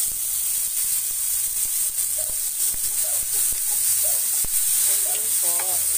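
Chopped tomatoes dropped into a hot oiled pan of sautéing onions and garlic, setting off a loud, steady sizzle that starts suddenly.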